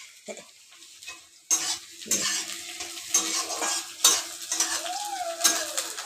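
Finely chopped onions sizzling in hot oil in a steel kadai on a gas burner, with a spatula stirring and scraping the pan every second or so. The sizzle starts suddenly about a second and a half in.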